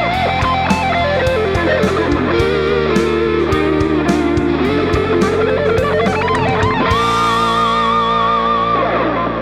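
Electric guitar playing a melodic lead line over sustained lower notes. The line steps down and climbs back up, then settles on a long held note with wide vibrato that starts to fade near the end.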